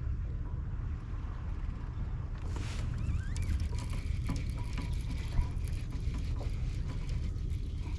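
Steady low wind rumble on the microphone aboard a kayak on open water. From about two and a half seconds in, crackling and scattered clicks join it, with one sharp knock a little past halfway.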